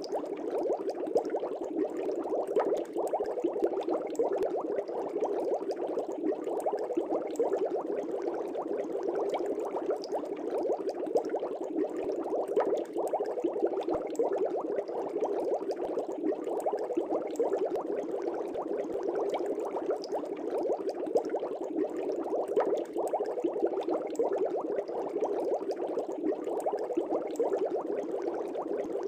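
Aquarium air bubbles bubbling steadily in the water: a dense, even stream of small burbles.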